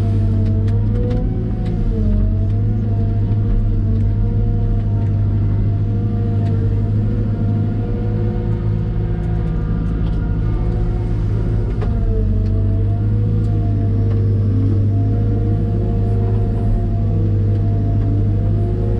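Caterpillar M313D wheeled excavator running: a steady diesel engine drone with a higher whine that dips and rises in pitch several times as the engine takes load, with a few faint clicks.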